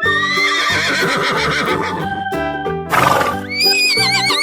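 A cartoon horse whinnying over cheerful background music, with a wavering, trilling neigh near the end. There is a short burst of noise about three seconds in.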